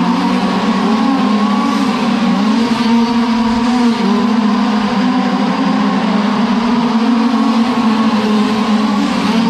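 Several 1/5-scale RC dirt oval race cars with small two-stroke gasoline engines running together at high revs, a steady engine drone whose pitch dips and rises as the cars go through the turns.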